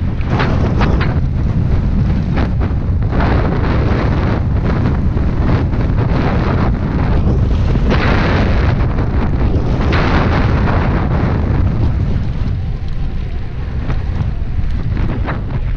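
Wind buffeting the microphone of an action camera on a mountain bike riding downhill: a steady low rumble that surges several times, with a few knocks from the bike going over rough ground.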